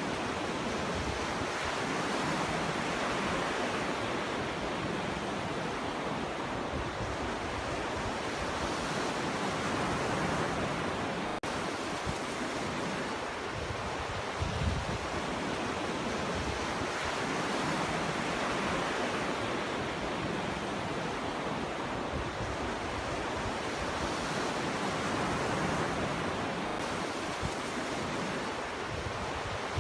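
Ocean waves breaking and washing up on a beach, a steady rushing surf that swells and eases every several seconds, with a low thump of a breaking wave about halfway through.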